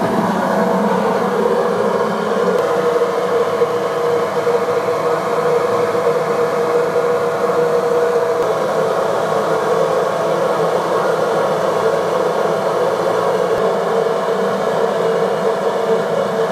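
Fristam in-line mixing system running: the electric motor drives of its liquid ring pump and high shear mixer give a loud, steady whir with a couple of steady hum tones, with liquid product circulating through it.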